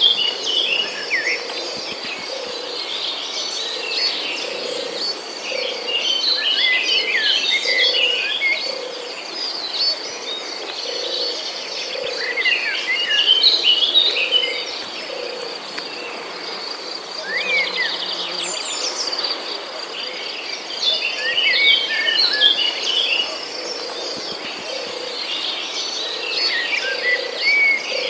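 Nature ambience: many birds chirping in short, quick calls over a steady high trill of crickets, with a soft low call repeating about once a second underneath.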